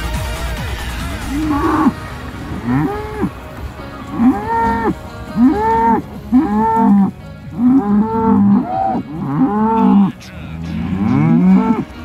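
Cows mooing, about nine calls in a row roughly a second apart, each rising and falling in pitch.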